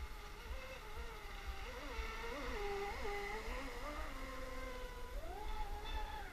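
Electric RC boat's Neu 2230 brushless motor whining as it runs across the water, its pitch rising and falling with the throttle and climbing higher about five seconds in. Wind rumbles on the microphone underneath.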